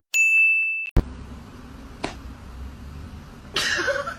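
A single steady high-pitched beep lasting under a second, then a sharp click and faint background noise, with a pitched voice-like sound starting near the end.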